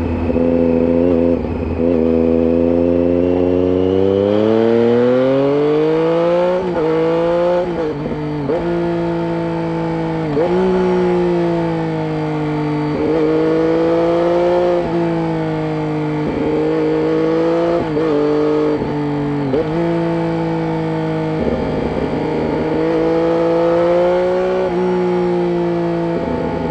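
2007 Triumph Street Triple 675 inline-three engine on a Roads Italia aftermarket exhaust with its dB killer fitted, pulling hard under way. The revs climb through the first several seconds, then rise and drop sharply again and again as the bike accelerates and closes the throttle.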